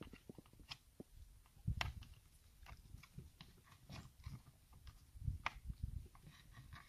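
Faint handling noise: scattered small clicks and soft low knocks as hands work a rubber hold-down strap and wiring in an ATV's seat compartment, with the louder knocks about two seconds in and again near five and a half seconds.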